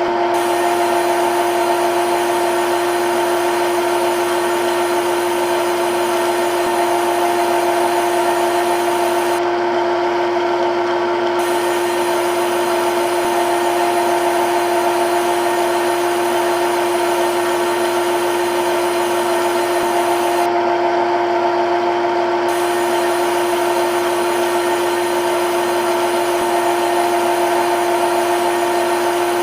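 CNC lathe running a turning cycle: a steady machining hum with several fixed tones over a hiss, with no change in pitch or loudness.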